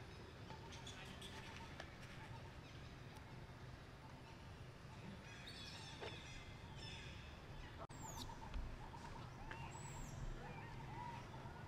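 Animals calling outdoors: scattered short, high-pitched chirps and squeaks, some sweeping downward, over a steady low background rumble, with a brief dropout about eight seconds in.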